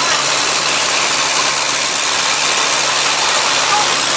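An engine running steadily at an even speed, a constant low hum under a broad hiss.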